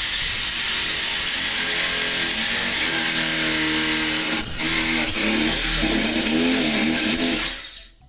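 Corded electric drill with an 18 mm bit running steadily as it bores into the wooden door's edge for the lock cylinder hole, a high whine over the cutting noise; it stops shortly before the end.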